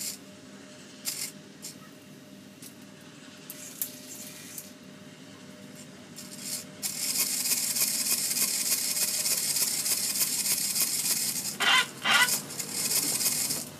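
Homemade robot dog's mechanism at work: faint clicks over a low hum at first, then about seven seconds in a loud steady hiss sets in and runs until near the end, with two short loud bursts close together near the end as the dog's head rises with its mouth open.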